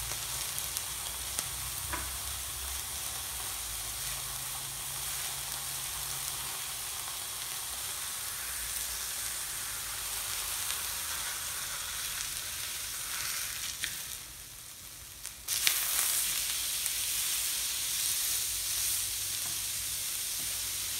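Skirt steak sizzling and frying on a stainless steel teppanyaki plate as spatulas turn and press it, with a few sharp clicks of the spatulas on the plate. The sizzle drops briefly a little past halfway, then comes back after a sharp click.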